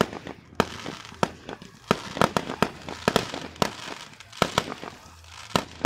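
Aerial fireworks shells bursting overhead: about a dozen sharp bangs at irregular intervals, several in quick succession.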